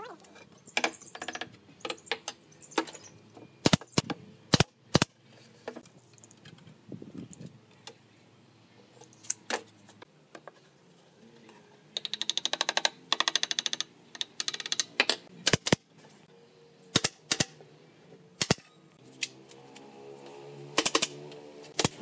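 Wooden mallet knocking a pine board into place inside a wooden box: a series of sharp knocks, with a quick run of rapid taps about twelve seconds in. Near the end, an electric drill hums briefly.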